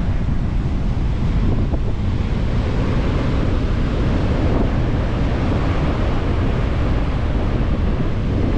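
Strong wind buffeting the microphone with a steady low rumble, over the rush of big sea waves breaking on the beach.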